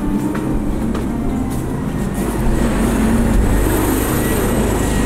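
A vehicle engine running steadily at a low, even pitch, with a faint high whine above it.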